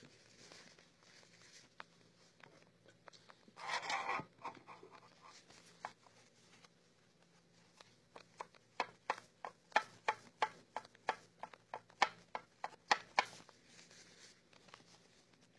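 Paper towel wet with rubbing alcohol scrubbed back and forth over the J3 edge-connector pins of a Ford EEC-IV engine computer's circuit board, wiping off the old grease. A short rustle about four seconds in, then a run of faint quick strokes, about two to three a second, through the second half.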